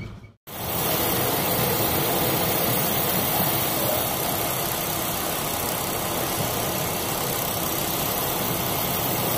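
Steady rushing noise of storm wind and heavy sea aboard a container ship, starting suddenly about half a second in after a brief gap. No separate wave impacts stand out.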